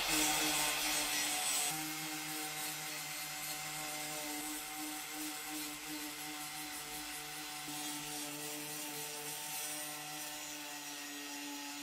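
Electric angle grinder fitted with a paper sanding disc, running steadily against a rusted steel van sill and stripping paint and rust down to find the solid metal. A steady motor whine sits under the rasp of the disc on metal, a little quieter after about two seconds.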